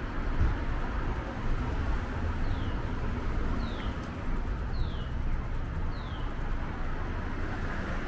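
Steady outdoor background noise with a low rumble of traffic, and four short high chirps, each falling in pitch, about a second apart.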